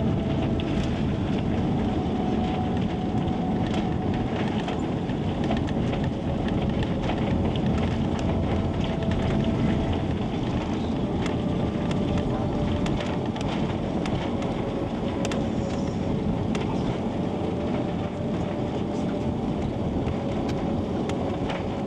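Cabin noise of an Airbus A340-300 on its landing rollout, heard inside the cabin behind the wing: a steady loud rumble and roar from its four CFM56 engines, airflow and wheels on the runway, with frequent small rattles and clicks from the cabin interior. It eases slightly near the end as the jet slows.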